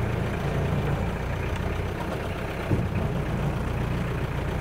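Old diesel car engine running steadily, a low, even engine note.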